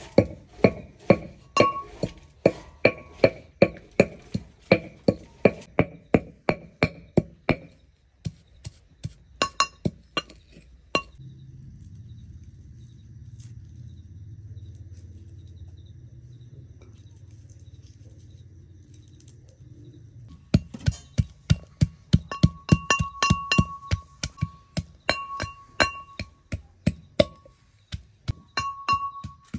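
Metal mortar and pestle being pounded in a steady run of ringing strikes, about two or three a second. The pounding stops for about ten seconds in the middle, leaving a low steady hum, then starts again a little faster with a clear metallic ring.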